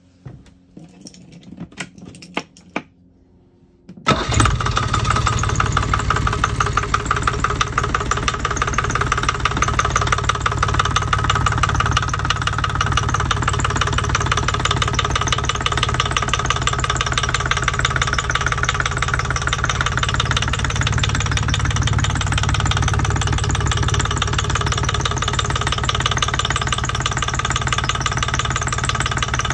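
A few scattered clicks, then about four seconds in a yacht's small inboard marine diesel engine starts abruptly and runs steadily with a fast, even clatter.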